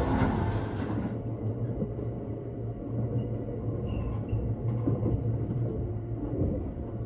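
Steady low rumble of the Thunderbird limited express electric train running, heard from inside the passenger car. Earlier music cuts off about a second in.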